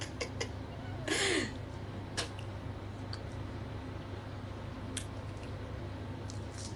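Pomelo being hand-peeled and eaten: a short slurping mouth sound about a second in, then scattered soft clicks and squishes of fingers tearing the fruit's membrane. A steady low hum sits underneath.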